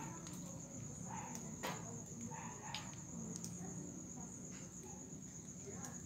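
A night insect trilling steadily on one continuous high note, with a few faint clicks, the sharpest about one and a half seconds in, and soft low background hum.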